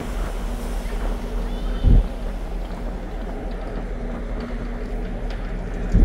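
A large passenger ferry's engines running with a steady low rumble and hum, heard on the open deck, with wind thumping on the microphone twice.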